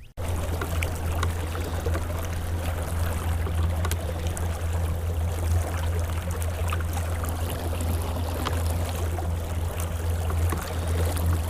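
Minn Kota Endura Max 44 lb electric trolling motor running steadily, a low hum under water rushing and splashing past the small boat.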